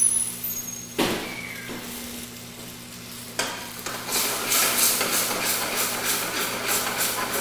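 Tomato and mushroom sauce in a stainless sauté pan sizzling and bubbling on a gas burner as lemon juice is squeezed in; the sizzling grows louder about three seconds in.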